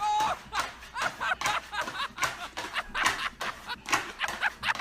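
A person laughing in a quick run of short, breathy bursts.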